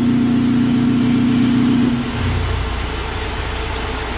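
Ceramic fibre support-mat forming machine running: a loud, steady machine hum that shifts down to a lower drone about two seconds in.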